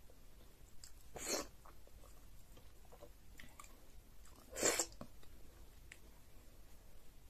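Close-up eating sounds of egusi soup and fufu eaten by hand: soft chewing, with two short, louder mouth noises about a second in and again about four and a half seconds in.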